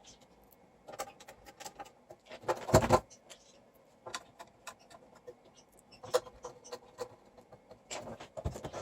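Workbench handling sounds: scattered light clicks and rubbing, with a louder rustling scrape just under three seconds in.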